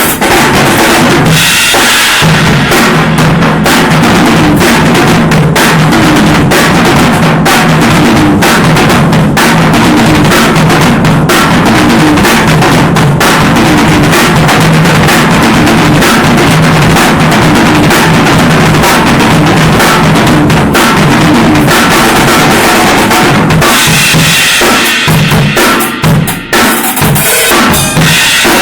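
Drum kit played continuously during a studio sound check: a loud, dense groove of kick drum and snare strikes with no pause.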